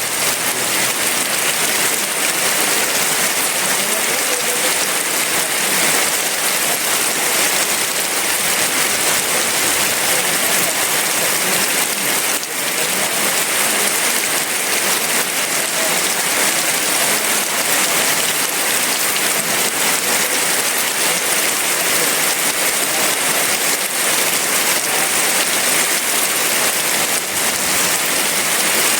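Heavy rain falling steadily: a dense, even hiss of drops on surfaces, with no thunder.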